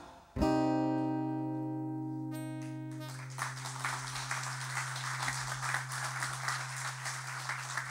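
A strummed acoustic guitar chord rings out and fades as the closing chord of a song. Audience applause starts about three and a half seconds in and carries on steadily.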